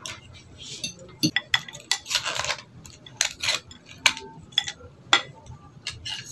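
Spoon and fork clicking and clinking against a plate during a meal, a dozen or so separate sharp clinks, with a short scraping noise about two seconds in.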